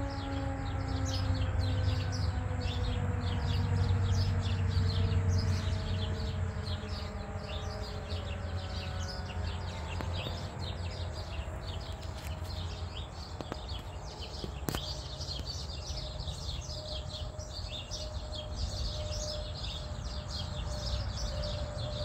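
A Federal Signal 2001-SRNB outdoor warning siren winding down after sounding for a severe thunderstorm warning: its tone falls slowly in pitch and fades away over about ten seconds. Birds chirp throughout, over a steady low rumble.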